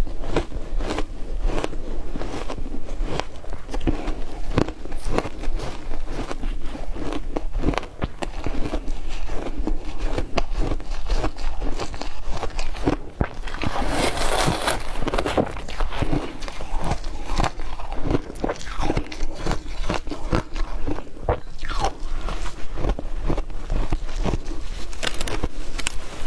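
Ice being bitten and crunched between teeth: a dense run of sharp crunches and cracks, with a crisper, louder stretch about halfway through.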